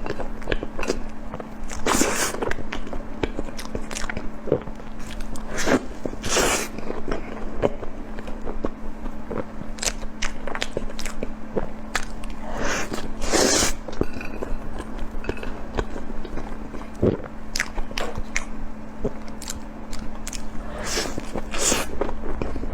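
A person biting and chewing food close to the microphone: irregular crunches and wet smacks, over a steady low hum.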